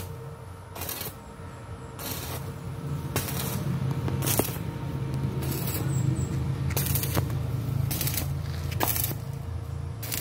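Stick welding on a steel pipe with a Powerhouse 200-amp portable welder: the electrode's arc crackles and sputters in short bursts about once a second, over a steady low hum.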